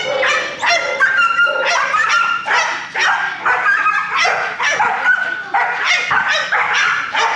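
Puppies yipping and barking: short, high-pitched calls several times a second, with calls at different pitches overlapping.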